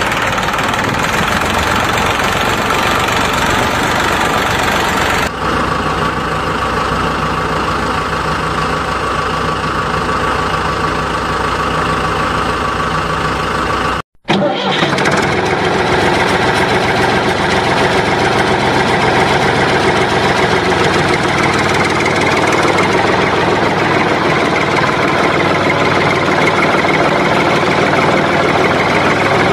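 Tractor engine running steadily. It cuts out suddenly for a fraction of a second about fourteen seconds in, then carries on.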